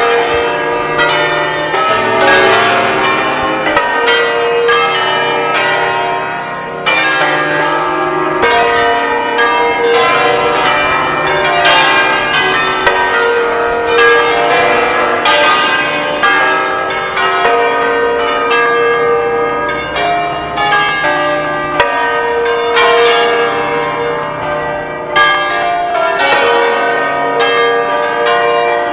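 Several church bells pealing together. The strikes come thick and overlap, so the ringing tones run on into one another without a break.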